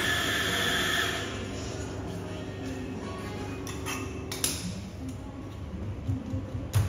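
Mazzer espresso grinder running with a steady whir that stops about a second in, followed by a few sharp metal clinks of the dosing cup and portafilter, the loudest near the end.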